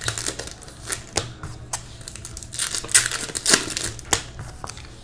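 Trading-card packs being opened and cards handled: irregular crinkling of wrappers and quick clicks and rustles of cards, over a low steady hum.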